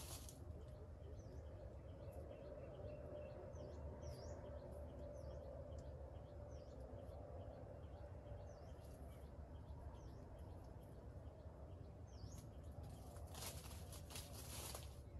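Faint, short, high chirps from small birds, scattered every second or so over a steady low background rumble. Near the end comes a short burst of rustling.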